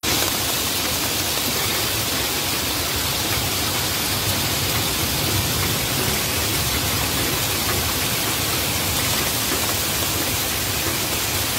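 Hailstorm downpour: heavy rain and hail pelting the ground in a dense, steady hiss.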